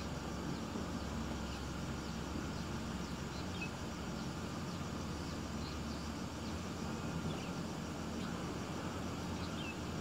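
Steady low outdoor rumble with a few faint, short bird chirps scattered through it.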